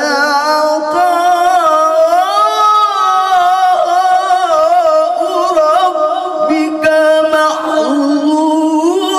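A man reciting the Quran in melodic tilawah style into a handheld microphone, holding long, ornamented notes that waver and glide in pitch. About seven and a half seconds in, the line steps down to a lower note.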